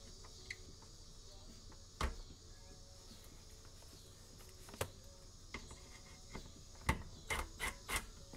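Sharp metal clinks and knocks from nuts, bolts and hand tools being worked on the exhaust's steel support plate. A single clink about 2 s in and another near 5 s, then a quick run of them near the end.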